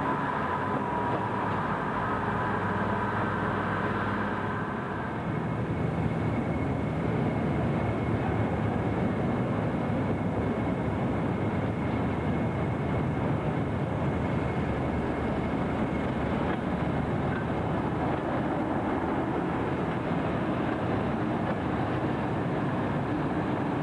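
A diesel multiple unit running as it pulls away, then, from about five seconds in, a Class 31 diesel-electric locomotive's English Electric engine running steadily at close range, with a steady high whine over the engine noise.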